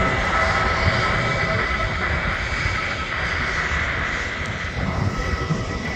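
Jet engines of a British Airways Airbus A320 running as the airliner moves along the runway for takeoff: a steady high whine over a deep rumble, easing slightly near the end.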